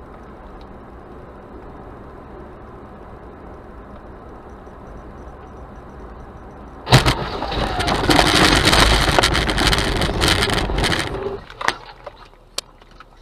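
Steady road noise inside a moving car, then about seven seconds in a sudden loud crash, followed by about four seconds of loud rushing and clattering as dust and debris pelt the car. A few sharp ticks of debris follow near the end.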